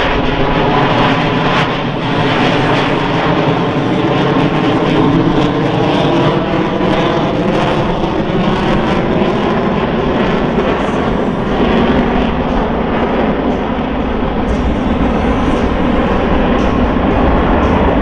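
Jet engines of Blue Angels F/A-18E/F Super Hornets (twin GE F414 turbofans) flying by: loud, continuous jet noise with a slowly shifting tone.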